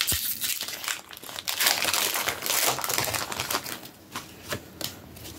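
Foil wrapper of a Pokémon TCG booster pack crinkling as it is handled, in two spells in the first three and a half seconds, then quieter with a few light ticks.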